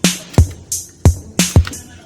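Background music: a hip-hop style beat of drum-machine kicks and snares.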